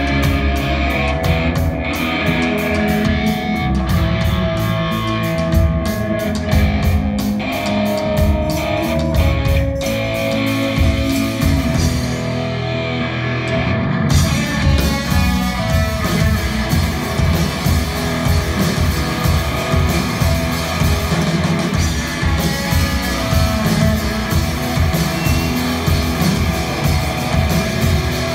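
Live rock band playing: drum kit keeping a steady beat under electric guitar. The cymbals drop out for about two seconds around the middle, then the full band comes back in.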